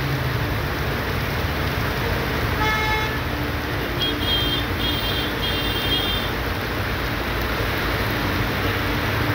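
Heavy rain and traffic on a flooded road: a steady hiss of rain and tyres through water. A vehicle horn sounds about three seconds in, followed by a run of short, high-pitched horn toots between about four and six seconds.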